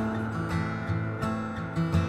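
Background music: a song in an instrumental passage, with strummed acoustic guitar.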